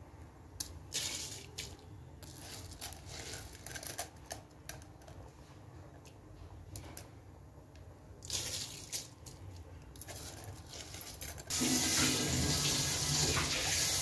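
Soaked rice being tipped into a large aluminium pot of boiling water and masala, with scattered patters and clinks over the bubbling liquid. Near the end a much louder steady rushing, water-like sound sets in suddenly.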